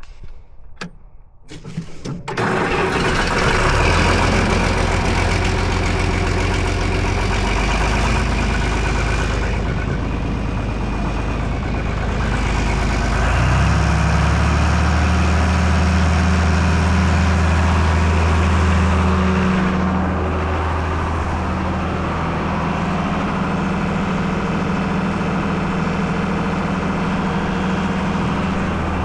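An engine starts about two seconds in and then runs steadily, its pitch stepping up a little before halfway and easing slightly about two-thirds through.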